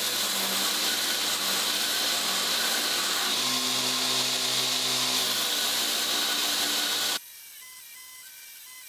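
Knifemaker's belt grinder grinding a high-carbon steel bar flat to take down its thickness: a steady, loud grinding hiss over the motor's hum, which shifts in pitch as the bar is pressed to the belt. The sound cuts off abruptly about seven seconds in.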